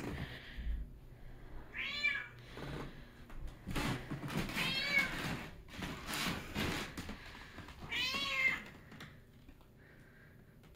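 Domestic cat screaming for attention: three drawn-out meows a few seconds apart, each rising and falling in pitch, with soft knocks between calls. She stops calling near the end.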